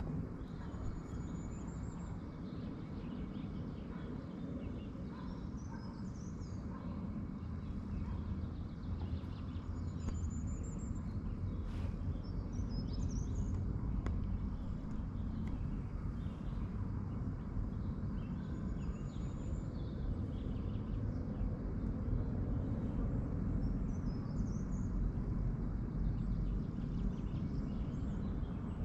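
Woodland birds calling over a steady low rumble, with a short high trill repeated about every nine seconds and scattered chirps in between.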